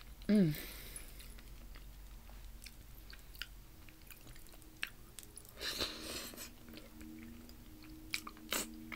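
Close-miked chewing and small wet mouth clicks of a person eating soft fufu dough with peanut soup, with a short falling "mm" about half a second in.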